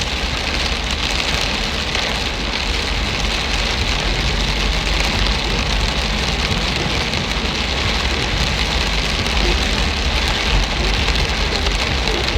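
Steady rain falling and splashing on hard surfaces, an even hiss with a low rumble underneath.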